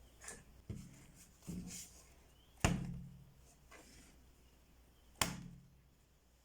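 A series of sharp slaps and knocks from a lump of glue-and-foot-talc slime being handled and struck. The two loudest come about a third of the way in and near the end, with smaller ones between.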